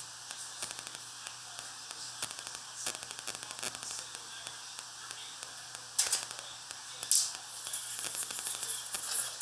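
Crinkling and rustling of wrapping handled at a kitchen counter, in short bursts of quick crackles, the loudest about six and seven seconds in, over a steady hiss and a faint low hum.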